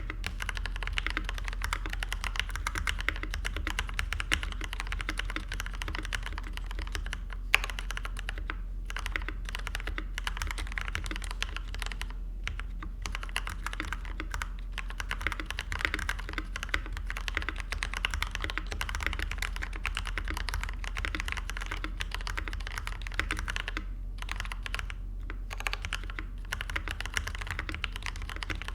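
Fast, continuous typing on a Leopold FC750R mechanical keyboard with lubed Kailh Box Black linear switches and GMK keycaps: a dense stream of keystroke clacks with a few short pauses and one louder stroke.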